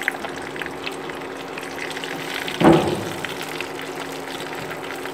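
Chicken pieces deep-frying in oil in a stainless steel pot: a steady bubbling sizzle with small crackles. About two and a half seconds in there is one brief louder burst as chopsticks move a piece in the oil. A steady low hum runs underneath.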